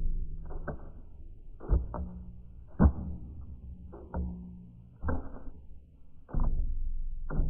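Music from an album track: sharp percussive hits about once a second over low sustained tones, all sounding dull and muffled.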